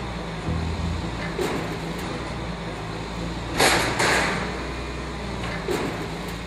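Front-loading garbage truck with its engine running steadily, and a loud crashing rush a little past halfway as the raised container is tipped into the hopper.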